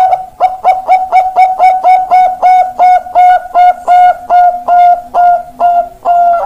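Zebra dove (Bangkok perkutut) singing one long, loud phrase of rapid cooing notes on a steady pitch, about three a second. The notes stretch longer toward the end of the phrase.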